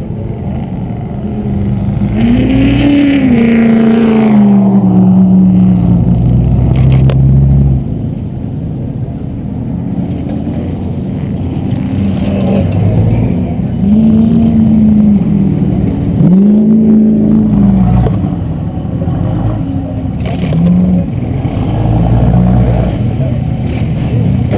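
Off-road race truck engines revving hard and passing by in several sweeps, the pitch rising and then falling each time. The loudest passes come about two to eight seconds in and again about fourteen to eighteen seconds in.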